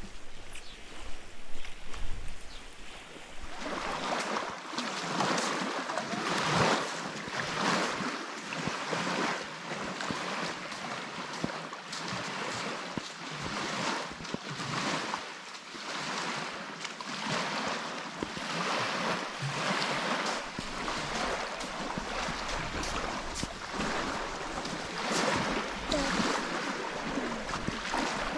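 Small wind-driven waves washing onto a sandy lake shore, rising and falling over and over, with wind blowing. The waves grow loud about three and a half seconds in, after a quieter start.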